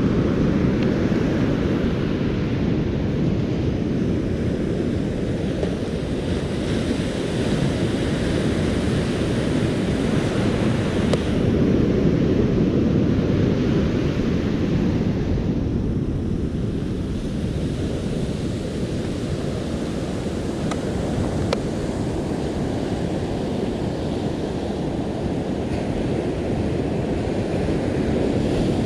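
Ocean surf breaking and washing up a sandy beach, its hiss rising and falling, over a steady rumble of wind on the microphone.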